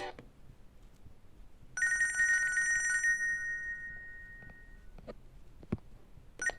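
A Nokia E65 ringtone: one bright bell-like chime about two seconds in, ringing and fading away over about three seconds. A few short clicks follow near the end.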